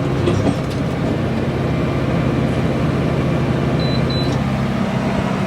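Massey Ferguson tractor engine and round baler running steadily under load, with the engine note shifting near the end.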